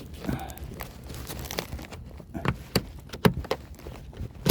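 Hands working a seat's upholstery cover: fabric rustling and an irregular run of sharp plastic clicks and knocks as the cover's edge channels are pressed and folded together, with the sharpest click at the end.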